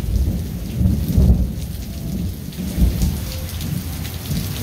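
Thunder rumbling low, swelling about a second in and again near three seconds, over steady heavy rain.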